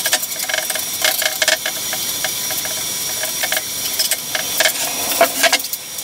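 A trowel scraping and tapping irregularly as wet concrete mix is worked over a board, over a steady hiss.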